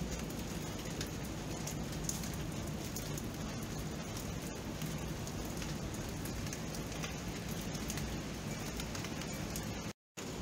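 Steady rain falling, with many separate drops ticking sharply against the even hiss. The sound cuts out completely for a split second near the end.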